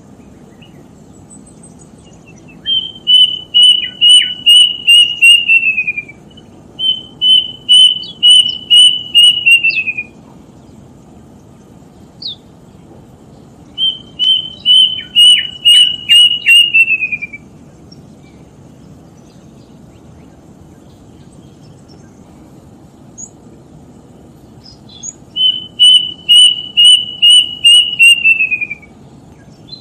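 A bird calling: four loud phrases, each a run of about eight clear, evenly spaced notes with the last few sliding down in pitch, over a steady low background hiss.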